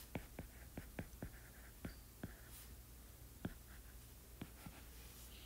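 Stylus tip tapping on a tablet's glass screen while handwriting: a run of light, sharp ticks, about four a second, that thins to a few scattered taps after about two seconds.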